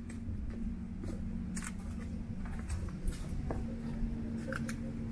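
Footsteps on stone steps and loose gravel: irregular scuffs and clicks, over a steady low hum.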